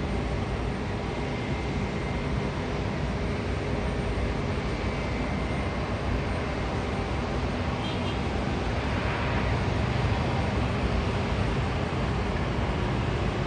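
Boeing 767-300ER airliner's jet engines, a steady loud rush during its landing, swelling a little about nine seconds in.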